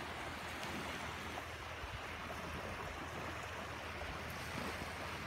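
Small waves washing in along the shore, a steady hiss of water with no distinct splashes.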